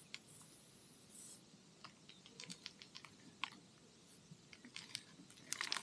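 Faint scattered clicks and scrapes of a tyre-plug kit's reamer being worked into a motorcycle tyre puncture to enlarge the hole before plugging it, with a quick cluster of clicks near the end.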